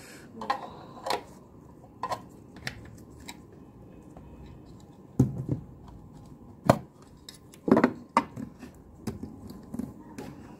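Plastic clicks of a magnetic 3×3 speed cube's layers being twisted, followed by several louder knocks of the hard plastic cube and its clear stand being set down on a wooden table, the loudest between about five and eight seconds in.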